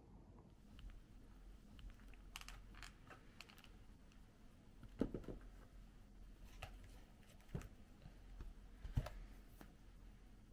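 Scattered light clicks and taps in a small room, with two louder knocks about five and nine seconds in.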